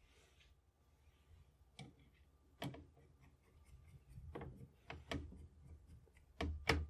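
Sharp metal clicks and light knocks from the bolt and action of a Dutch M1871/88 Beaumont rifle being handled: a few single clicks, then several closer together near the end.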